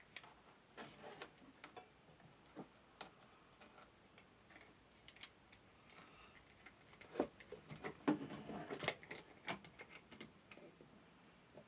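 Faint, irregular clicks and taps of small metal and plastic desk-fan parts being handled and set down, with a busier cluster of knocks near the end.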